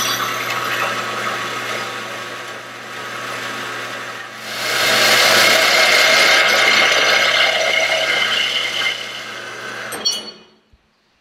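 A horizontal metal-cutting band saw runs with a steady motor hum while its blade cuts through the Torqeedo outboard's shaft profile. The cutting gets louder about halfway through. Near the end the saw shuts off with a click and the cut is finished.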